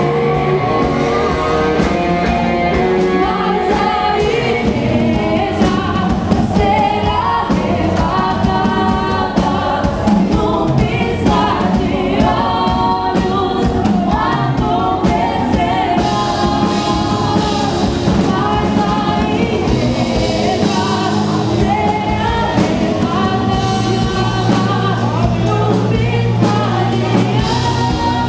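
Gospel worship music: many voices singing together over a band with drums, loud and continuous.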